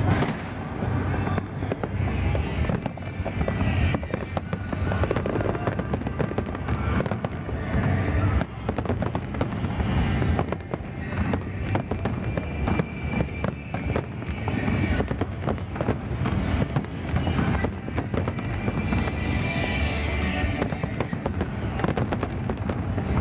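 Big aerial fireworks display: a rapid, continuous barrage of shell bursts, many bangs every second with no break.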